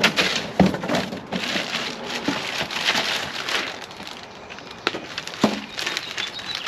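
Cardboard shipping box and a plastic-wrapped radiator being handled: irregular rustling, scraping and crinkling of cardboard and plastic, with a few sharp knocks as packing pieces and the box are moved about.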